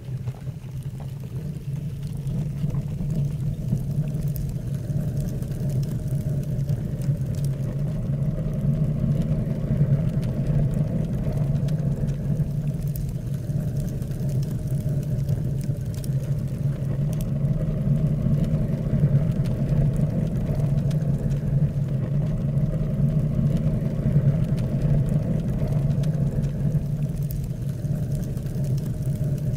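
Fire burning with a steady low roar, with a few faint crackles.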